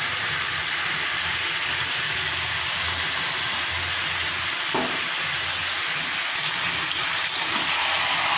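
Mutton and onions sizzling steadily in hot oil in a wok, with ground-spice paste just added on top. A low hum runs underneath.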